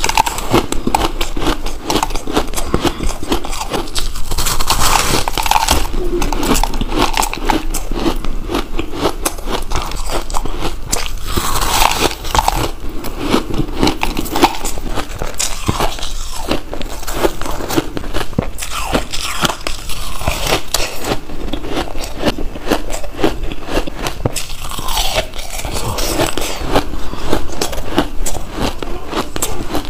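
Close-miked biting and chewing of a crystalline chunk of purple ice: a dense, continuous run of crisp crunches and crackles.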